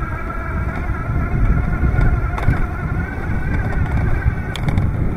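ENGWE Engine X electric bike's 250 W motor whining steadily under throttle while climbing a hill, over a heavy rumble of wind on the microphone.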